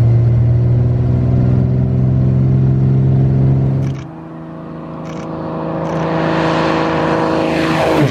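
Beechcraft Bonanza F33A's piston engine running steadily, heard from inside the cabin. After about four seconds the sound changes to an engine approaching and passing close by, growing louder with its pitch dropping just before it cuts off.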